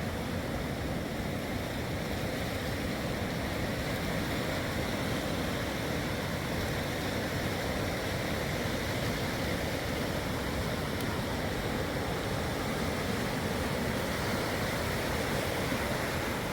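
Sea surf breaking on the shore, a steady rushing wash of waves with no separate events.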